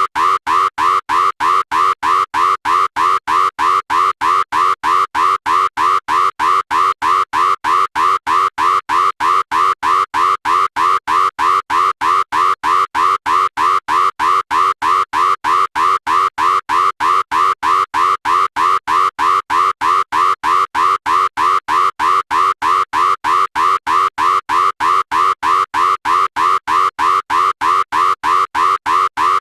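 Cash machine 'red alert' alarm sound effect: a loud electronic tone pulsing rapidly and without a break, about three beeps a second.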